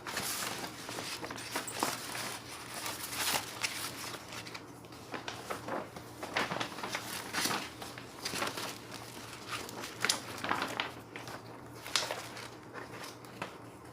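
Paper posters being handled, an irregular rustling and crinkling with a few sharper crackles.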